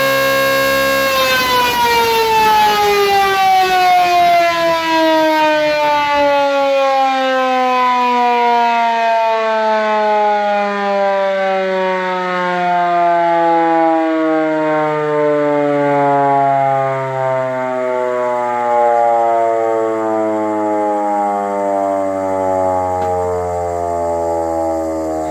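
Restored Elektror S2a electric motor siren holding a steady tone for about a second, then switched off. Its rotor coasts down, so the wail sinks slowly and smoothly in pitch for the rest of the time, still sounding at the end.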